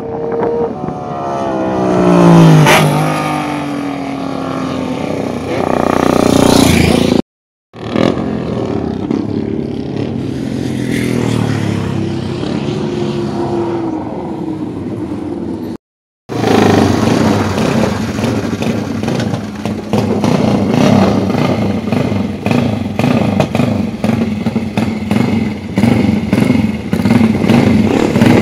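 Racing motorcycle engines: one motorcycle passes at speed, its engine note dropping in pitch as it goes by, then, after two abrupt cuts, motorcycle engines running with a steady, rapidly pulsing exhaust note.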